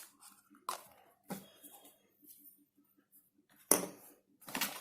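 Handling noises: a few brief rustles and knocks as products and packaging are handled, the loudest about four seconds in.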